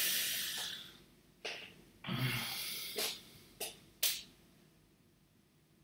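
A man's heavy, breathy exhales into a close microphone: two long sighs of exasperation, followed by three short sharp sounds about half a second apart.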